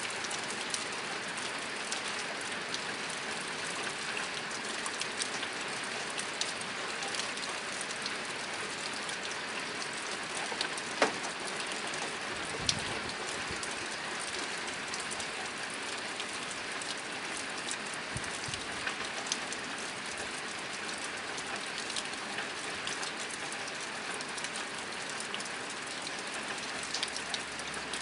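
Steady rain falling on a tin roof: a dense, even patter of drops on metal, with a few louder single drops standing out, one of them about eleven seconds in.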